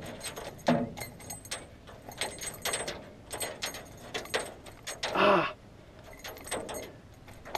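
Metal clinking and rattling of a spinnerbait and its hook being worked free from a northern pike's mouth by hand, with light knocks on the aluminium canoe floor. A short vocal sound comes about five seconds in.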